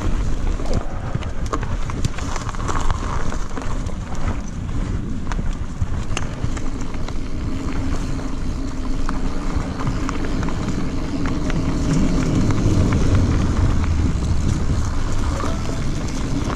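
Mountain bike running fast down a dirt singletrack: tyres rolling over earth and dry leaves, with many small clicks and rattles from the bike. A steady rumble of wind buffets the microphone.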